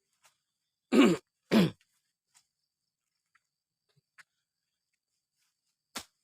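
A man clearing his throat twice in quick succession, each a short sound falling in pitch, with a few faint clicks around it.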